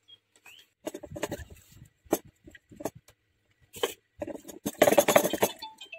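Raw mangoes being handled over a steel plate and pot: a run of short knocks and clinks, then a louder splashing burst about five seconds in as a mango is washed in a small steel pot of water.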